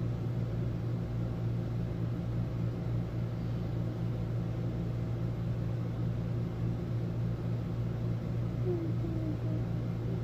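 Steady low mechanical hum with a light hiss over it, unchanging throughout.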